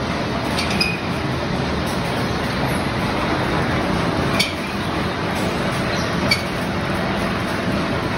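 Steel drying-line machinery running steadily, with material tumbling down a sheet-steel chute into a rotating drum and a few sharp clinks as pieces strike the metal.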